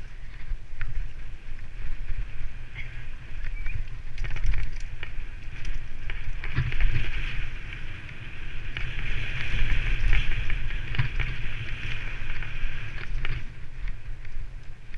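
Mountain bike descending a dirt trail: wind buffeting the camera microphone, tyres rolling over the ground and the bike rattling over bumps in a run of clicks. A steady higher whirr is strongest for a few seconds past the middle.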